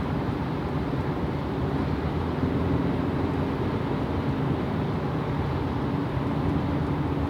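Steady road noise inside a car cruising on a freeway: a low, even rumble of tyres on a bumpy road surface, with a faint steady hum joining about two and a half seconds in.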